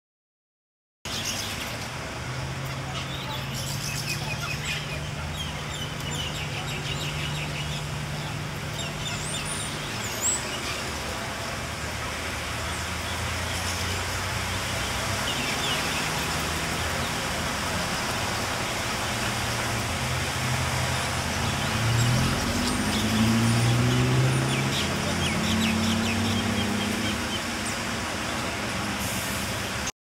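Steady city traffic hum with an engine rising in pitch about three-quarters of the way through, and western corellas calling now and then over it.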